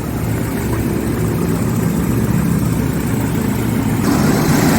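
Car engine running with its belt-driven cooling fan, whose viscous fan clutch has just been refilled with silicone oil, pulling air strongly. The sound gets louder and brighter about four seconds in.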